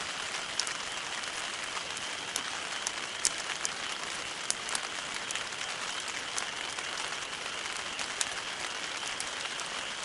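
Campfire burning: a steady crackling hiss with irregular sharp pops of burning wood.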